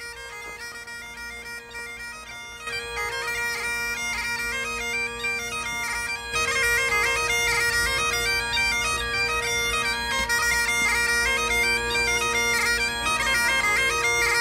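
Bagpipe playing a melody over a steady drone, getting louder in steps about three and six seconds in.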